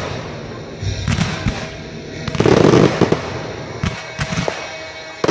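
Aerial fireworks going off: a series of booms and pops, with a dense burst of rapid crackling about halfway through.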